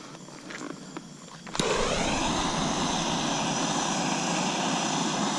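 A Winda ground bloom firework fountain ignites about a second and a half in and sprays with a loud, steady hiss of burning sparks, after a few faint clicks.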